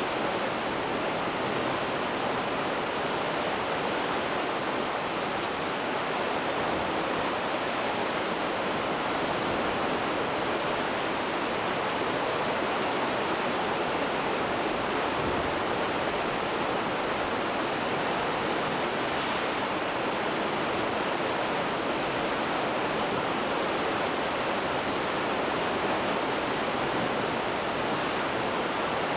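Steady, even rushing noise of outdoor ambience at the cliff, with no rise and fall, and a few faint ticks here and there.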